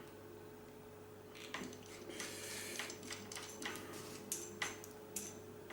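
Small metal clicks and scraping as pliers scrape excess solder off the soldered joint of a PL259 coax plug, with a short scratchy stretch about two seconds in.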